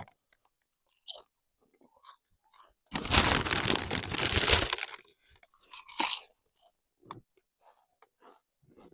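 Crunching and rustling for about two seconds in the middle, with scattered light clicks and scuffs before and after.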